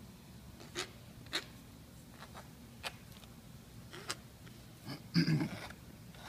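Scoring a soft clay slab's edges with a small hand tool: a few short, scattered scratches of the tool crosshatching the clay. About five seconds in comes a brief, louder sound.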